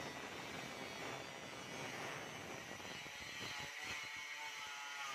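Corded angle grinder with a cutting disc cutting through a corrugated steel deck sheet: a steady, high grinding whine. About three and a half seconds in the deep part of the noise thins out, leaving the higher whine.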